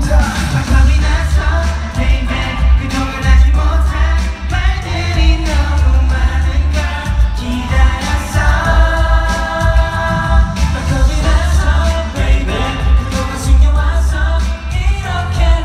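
Pop song performed live by a male vocal group, singing melodic lines over a backing track with a heavy, pulsing bass, played loud through concert hall speakers.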